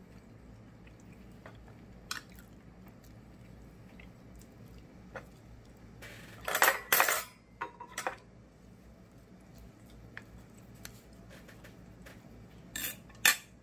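Fork and knife clinking and scraping against a plate while cutting a steamed rice cake, in a few short clusters of clicks, the loudest about halfway through and another pair near the end.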